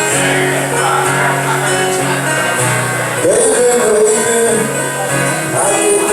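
Music: a ballad with held chords and a sliding melodic line entering about three seconds in, between sung lines.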